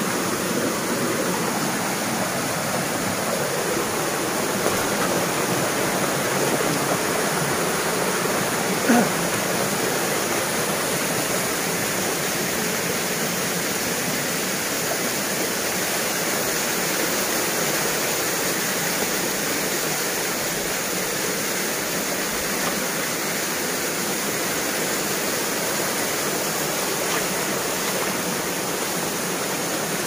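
Steady rush of a rocky mountain stream with a thin waterfall splashing onto the boulders. One brief knock about nine seconds in.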